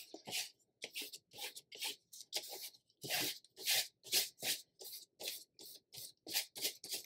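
Large paintbrush loaded with acrylic paint scrubbed back and forth across paper in a quick series of scratchy strokes, about two or three a second.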